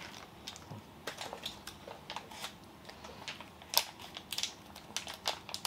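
Scattered light clicks and crinkles of small plastic packaging being handled as a Zuru Mini Brands mini item is unwrapped, with one sharper click about four seconds in.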